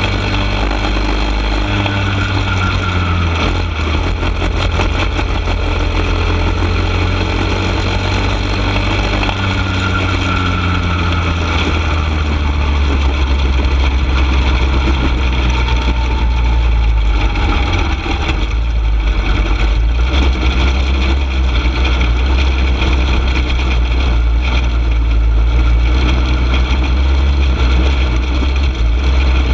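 Junior champ go-kart's engine running at racing speed, heard from on board, its pitch rising and falling with the throttle through the turns, over a heavy low rumble.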